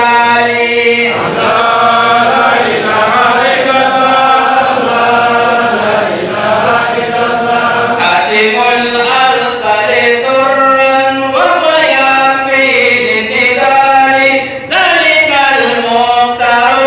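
A man chanting a devotional Islamic song solo into a handheld microphone, in long held melodic lines with brief pauses for breath.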